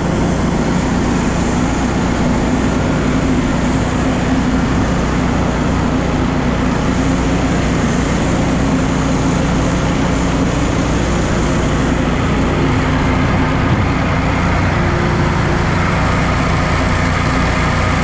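Shelled corn pouring from a hopper-bottom bin into a running Batco belt conveyor, a steady rush of grain over the conveyor's constant drone.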